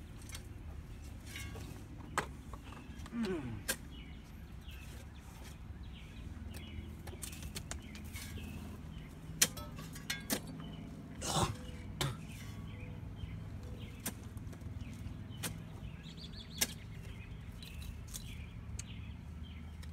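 Scattered sharp knocks of a digging tool striking soil and roots, about eight blows spread irregularly, over a low steady rumble.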